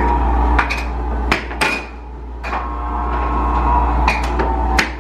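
Air hockey puck and mallets clacking, with about half a dozen sharp, irregular hits as the puck is struck and rebounds off the table's rails. The steady hum of the table's air blower runs underneath.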